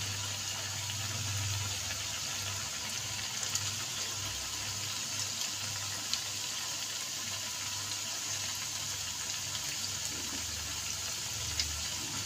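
Cut strips of maida dough (namak pare) deep-frying in hot oil in a kadhai: a steady sizzling hiss with a few small pops, the fresh batch still bubbling hard as its moisture cooks off.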